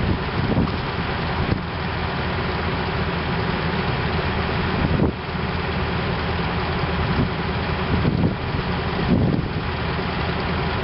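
Heavy diesel engine running steadily at low revs.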